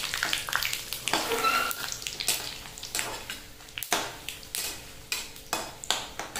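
Whole spices and dried red chillies sizzling in hot mustard oil in a metal kadai, stirred with a flat metal spatula that scrapes and clinks against the pan again and again: the tempering being fried.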